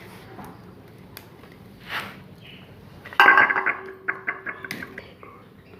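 Metal parts of a ceiling fan being handled: a sharp clink about three seconds in that rings on for a second or so, with a few lighter clicks and scrapes around it.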